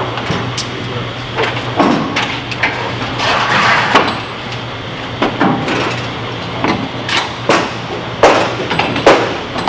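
Sledgehammer blows on wood, a series of irregularly spaced sharp strikes, as freshly steamed white oak frames are driven into place in a wooden boat hull. A steady low hum runs beneath.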